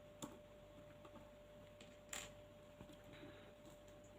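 Near silence, with two faint clicks, about a quarter second in and about two seconds in, from small hop-up unit parts and screws being handled during disassembly.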